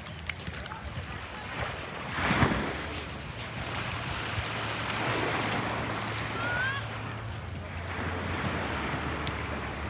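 Small waves washing onto a sandy shore, with wind on the microphone; one wash swells loudest about two seconds in.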